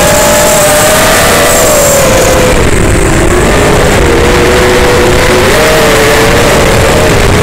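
Racing quadcopter's brushless motors and propellers whining, heard close up through the drone's onboard camera microphone over a constant rumble of motor and wind noise. The pitch sags about two and a half seconds in, then wavers up and down with the throttle.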